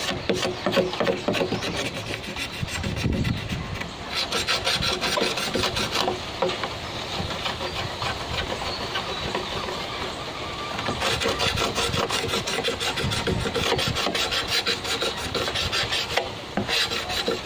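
A sharp hand-held blade scraping the green outer skin off a bamboo pole in rapid, short, repeated strokes. The scraping comes in spells, heaviest from about four to six seconds in and again from about eleven seconds on.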